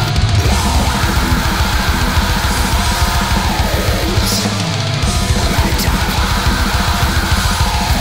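Heavy metal recording: distorted electric guitars over fast, dense drumming. The bass drums drop out briefly about halfway through and come back about a second later.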